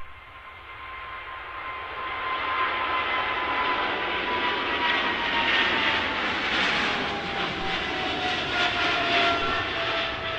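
Jet airliner engines passing close by. The engine noise builds over the first few seconds and then holds loud, while a high whine slides steadily down in pitch as the aircraft goes past.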